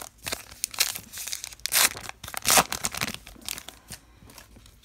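A Topps Archives baseball card pack wrapper being torn open and crinkled in a run of sharp rips and rustles. The loudest rips come about two seconds in, and the sound dies down near the end.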